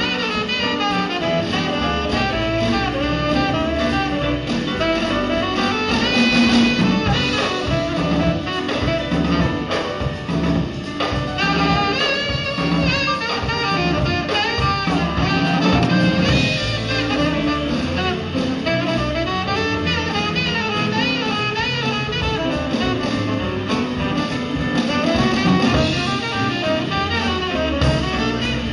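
A band playing jazz: a drum kit keeps a steady beat under a wavering lead melody.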